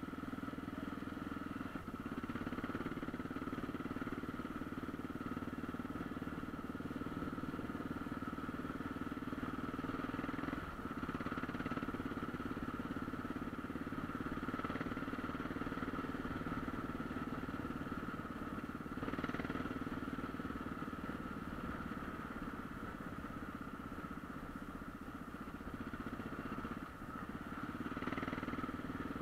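Off-road motorcycle engine running steadily under way, heard from the handlebars, with brief dips in the engine note about 2, 11 and 27 seconds in and a short knock near 19 seconds.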